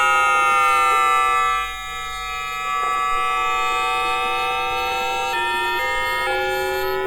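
Bombardier Mitrac IGBT VVVF traction inverter of a 2009 Tube Stock train, picked up electromagnetically by a telephone pickup coil: a chord of whining tones that glide downward, dip briefly, then slowly climb again. About five and a half and six seconds in, the pitch jumps abruptly as the inverter switches pulse pattern.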